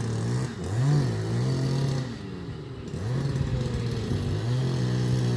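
Diesel engine of a crane truck revving up and down several times as it works the hoist lifting heavy eucalyptus logs.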